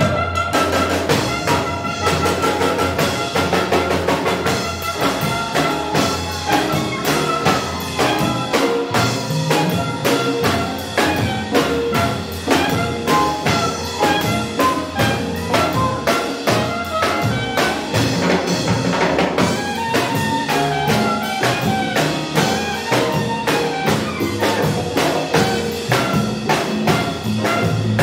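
Live Afro-Cuban jazz band playing: a saxophone melody over a drum kit, upright bass and percussion, with a steady, busy rhythm.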